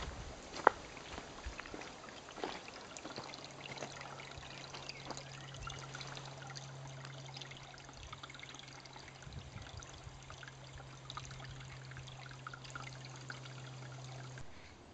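A small stream trickling over stones in a nearly dry summer stream bed, a thin, even water sound. A few sharp knocks come on top, the loudest just under a second in, and a faint low steady hum starts about three seconds in and stops near the end.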